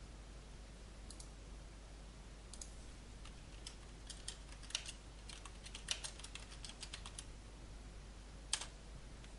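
Computer keyboard typing: a few scattered key clicks, then a quick run of keystrokes as a word is typed in, and a single louder click near the end, over a faint low hum.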